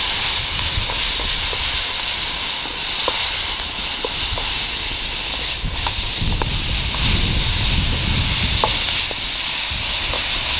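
Sliced bell peppers and onions sizzling in a wok over a campfire as a splash of red wine vinegar cooks off: a steady hiss, with a metal spatula scraping and tapping the pan now and then as the vegetables are stirred.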